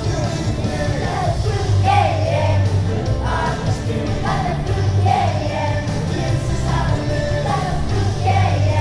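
A song: a voice singing a melody over a full backing band with a steady, heavy bass.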